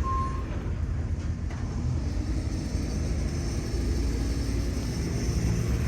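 Steady low rumble of vehicles and machinery working outdoors, with one short electronic beep at the start, like a reversing alarm.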